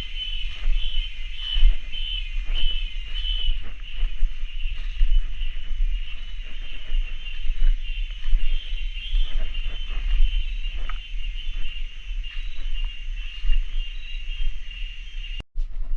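Cicadas calling in a steady, high, pulsing chorus, over a low rumble and scattered knocks. The sound cuts out briefly near the end.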